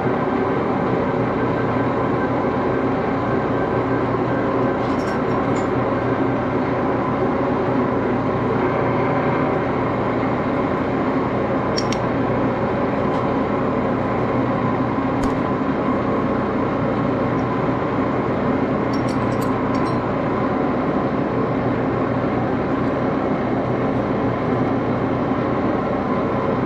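Old lathe's drive running steadily, a constant mechanical hum made of several steady tones, with a few light metallic clicks from the part and chuck being handled.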